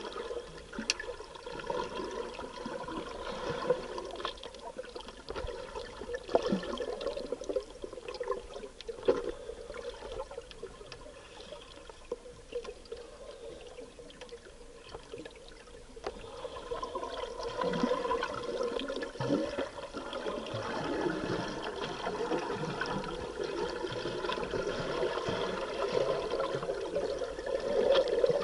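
Scuba diver's exhaled bubbles gurgling and rushing underwater, with scattered small clicks; the bubbling grows louder over the last ten seconds or so.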